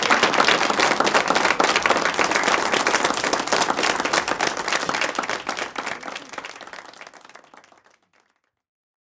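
Audience applauding: a dense run of many hands clapping that fades away over the last few seconds and stops about eight seconds in.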